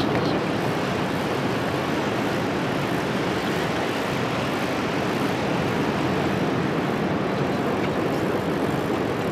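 Steady rush of ocean surf and wind.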